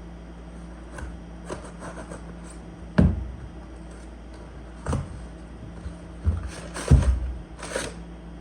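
A package being unpacked by hand: a string of knocks and thumps as it is handled, with a burst of paper rustling near the end.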